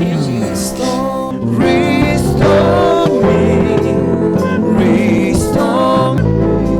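Gospel worship music with guitar and singing voices, played as a steady background.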